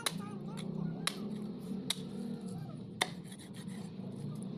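A large knife sawing and scraping through a rohu's neck and backbone on a wooden chopping block, with a few sharp cracks about a second apart as the blade bites through bone or meets the wood.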